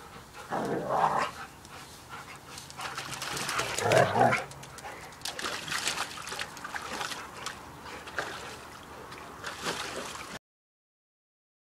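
A husky and a Nova Scotia Duck Tolling Retriever vocalising in rough play, with louder outbursts about one and four seconds in. Then comes splashing as the husky moves about in a plastic paddling pool. The sound cuts out suddenly near the end.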